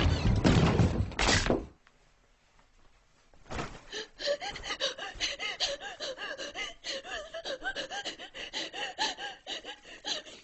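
A loud burst of sound cuts off suddenly less than two seconds in. After a moment of near silence, a person breathes in quick, shaky gasps with small whimpers, several a second.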